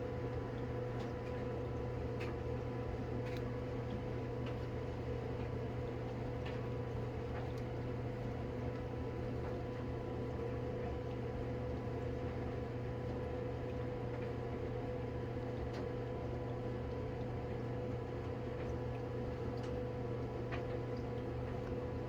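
A steady mechanical hum with a few faint, light clicks.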